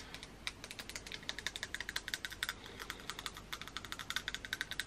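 Long acrylic nails tapping against front teeth: a quiet, quick, uneven run of light clicks.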